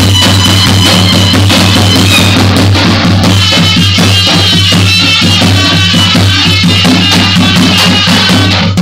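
Balkan tapan, a large double-headed bass drum, beaten in a steady rhythm with a beater and a thin stick, under a droning wind instrument playing a folk melody.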